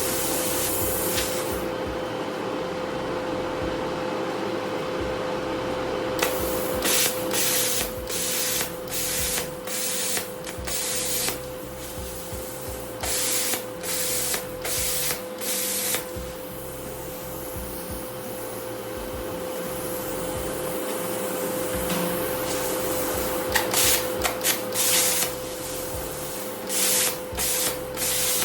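Plasma cutter cutting 11-gauge expanded metal at about 30 amps: the arc and air jet hiss in many short bursts, with a quieter stretch in the middle. A steady hum runs underneath.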